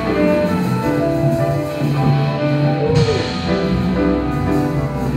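Live jazz ensemble playing: held saxophone melody notes over double bass, piano and drum kit.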